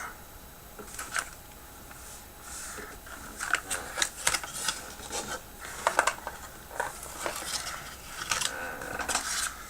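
Irregular clicks and rustling of small hardware being handled, with washers from an assortment kit picked through and tried. There are sharper clicks about a second in, around four seconds and around six seconds.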